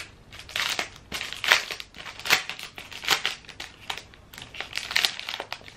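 Plastic packaging of a stencil set crinkling as it is handled and pulled open, in a series of irregular rustling bursts.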